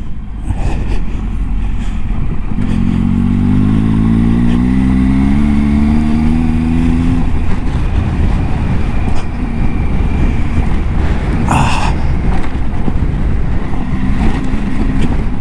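Triumph Tiger 800 XCa's three-cylinder engine pulling hard on a loose gravel track, its note rising steadily for about four seconds as it accelerates, over a constant rush of tyre and wind noise. There is one brief knock about twelve seconds in.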